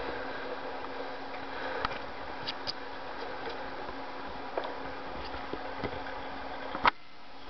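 Underwater pool ambience heard through a submerged camera: a steady hiss with a constant low hum, many small scattered clicks, and one sharp, louder click about seven seconds in.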